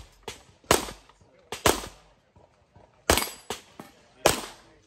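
A string of handgun shots fired during a practical shooting stage run, about seven in under five seconds, some in quick pairs, each with a short echoing tail.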